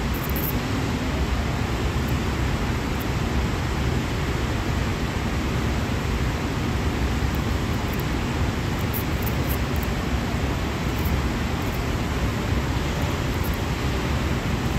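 Carbon-arc electrode melting lead on an industrial battery's terminal post, run off the battery's own cells at about 6 volts: a steady hiss with a few faint crackles.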